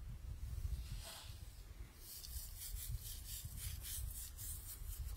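A metal spoon scraping and stirring in a wooden bowl of broth: short, quick strokes about five a second, starting about two seconds in, over a low rumble.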